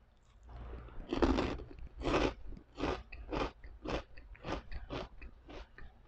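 Crisp fried pork rind (pork chicharon) being bitten and chewed. Two loud crunches come about a second and two seconds in, then steady crunching chews at about two a second that grow softer.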